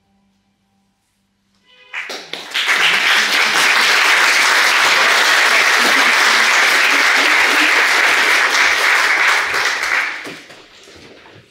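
An audience applauding: clapping breaks out about two seconds in, right after a sung piece ends, holds steady for about eight seconds, then dies away near the end.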